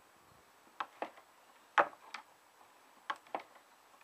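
Wooden automaton mechanism clacking as it works the moving branches and boxing kangaroo: sharp wooden knocks, mostly in pairs, repeating about once a second.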